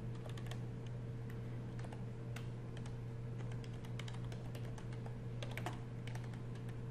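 Computer keyboard typing: irregular key clicks as a short phrase is typed, over a steady low hum.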